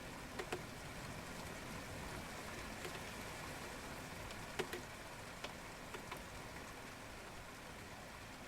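Steady rain, an even hiss with scattered sharp taps of single drops, the loudest a pair about halfway through.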